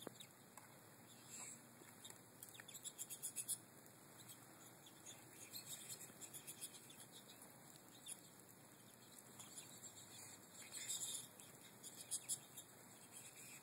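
Faint, high-pitched twittering and chirping of a flock of American goldfinches at feeders, coming in brief clusters about three seconds in and again near eleven seconds.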